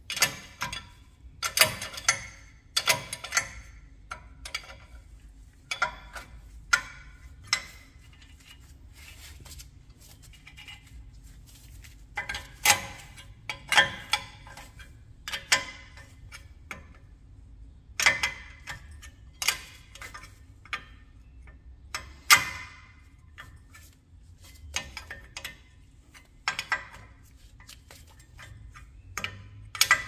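Hand tools working on the metal of a truck's wheel hub assembly: sharp, irregular metallic clicks and clinks, some single and some in quick little clusters, every second or so.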